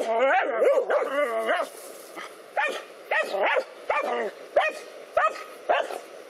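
Dogs barking at a snake: loud wavering yelps and whines for the first second and a half, then short sharp barks about two a second.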